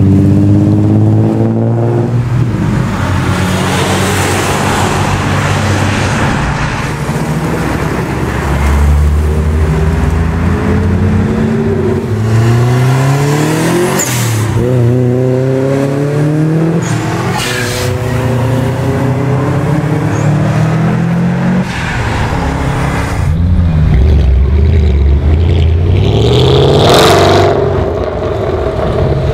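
A run of performance cars accelerating hard away one after another, each engine revving up and dropping back at gear changes. First comes a widebody Nissan 350Z's V6, then a Subaru Impreza WRX STI's turbocharged flat-four, and near the end the loudest pass, a Mercedes C63 AMG Black Series V8.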